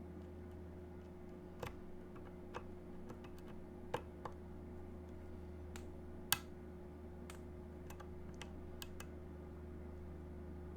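Light, irregular clicks and ticks of lock-picking tools working the pins inside a DOM Diamant high-security lock. There are about a dozen clicks, the sharpest about six seconds in, over a steady low hum.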